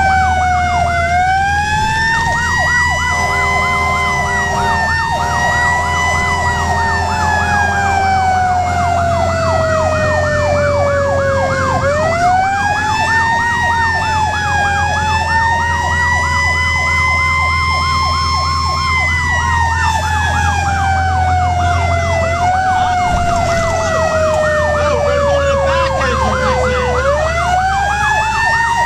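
Fire engine siren wailing in long sweeps, climbing quickly and sliding slowly down over several seconds, with a rapid yelping siren running over it and the truck's diesel engine droning underneath. A steady horn tone sounds for about five seconds near the start.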